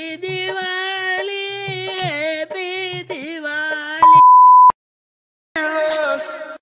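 A voice singing long, wavering held notes for about four seconds, cut off by a loud, steady beep lasting under a second. After a short gap, another sung phrase comes in near the end.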